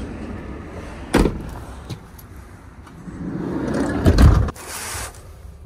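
Fiat Ducato van's cab door and body as someone climbs in: a sharp knock about a second in, then clothing and body movement and a heavy door thump about four seconds in. A low rumble of car-park traffic runs underneath.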